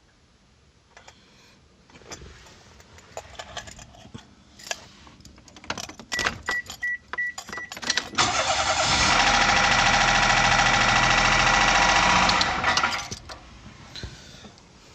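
Clicks and rustling, a few short high beeps, then a Daihatsu Mira's engine is turned over with the key and makes a loud, harsh mechanical noise for about five seconds before stopping abruptly. The engine is ruined from running without oil changes.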